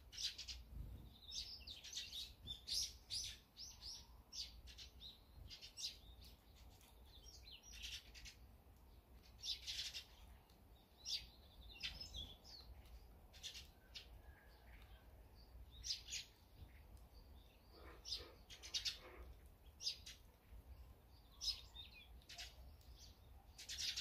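Eurasian tree sparrows chirping: many short, high chirps coming in clusters every second or two.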